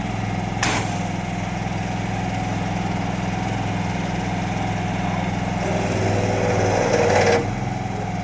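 An engine running steadily with a low hum, most likely driving the drill's water pump. A short hissing spurt comes about a second in, and a louder hiss of about two seconds near the end cuts off suddenly, as of water jetting from the hose nozzle.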